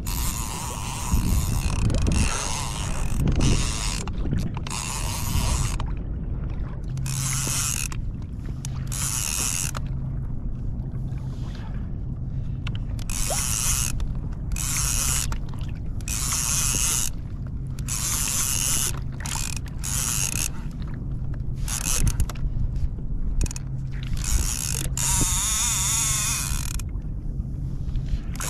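Conventional fishing reel cranked in short bursts of gear rattle, roughly one every second or so, as the rod is pumped and line is wound in against a hooked fish.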